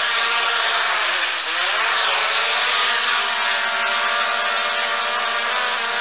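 Multirotor camera drone's propellers and motors giving a steady, high buzzing whine; the pitch dips and rises back about a second and a half in.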